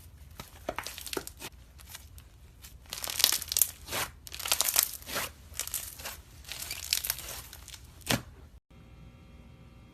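Slime being squeezed and pulled by hand, giving irregular clusters of crackling clicks. The clicks stop abruptly about three-quarters of the way through, leaving a faint steady hum.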